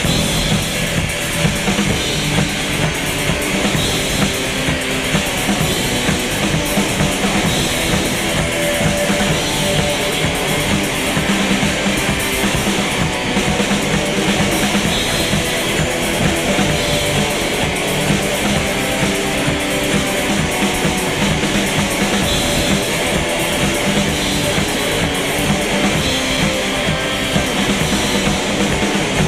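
Instrumental rock music: drum kit and guitar playing a steady beat, with no singing.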